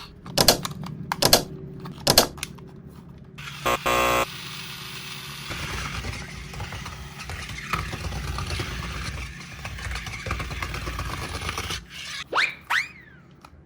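Small battery-powered toy motor running steadily for about eight seconds, after a few sharp plastic clicks. A short buzzy tone comes about four seconds in, and quick rising whistle-like glides come near the end.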